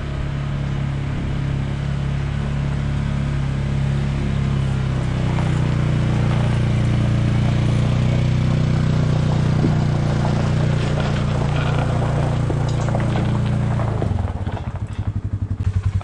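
Polaris Ranger 570 side-by-side's engine running as it drives up and past while towing a log on a log arch, a steady hum that grows louder over the first ten seconds and falls away about fourteen seconds in.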